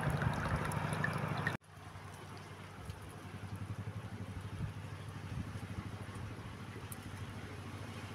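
Wind buffeting the microphone as a fluttering low rumble. It is louder for the first second and a half, then cuts off abruptly to a fainter rumble.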